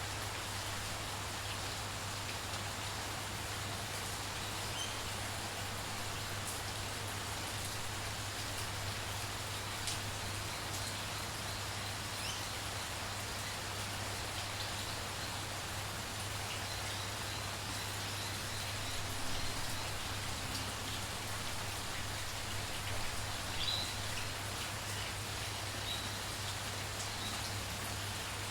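Steady rain falling on foliage and ground, with a few faint, high bird chirps in the second half and a steady low hum underneath.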